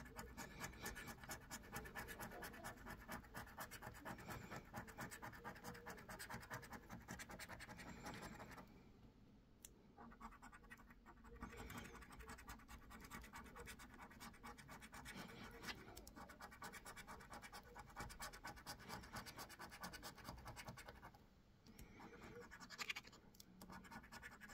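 Faint, rapid scratching as the coating is rubbed off a UK scratch card in quick strokes. It stops twice briefly, once about a third of the way in and once near the end.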